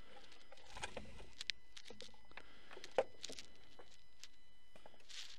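A faint, steady high-pitched electrical buzz, interrupted by scattered light clicks and knocks, with one sharper knock about three seconds in. The buzz stops near the end.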